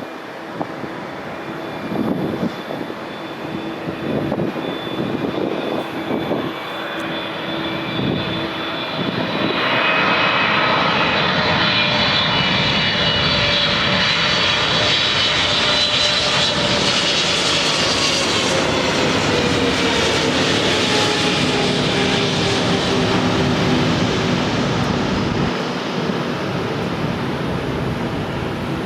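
Kalitta Air cargo jet landing: wind buffets the microphone at first, then about ten seconds in the jet engines come in loud, with a whine that slowly falls in pitch as the aircraft passes, easing off near the end.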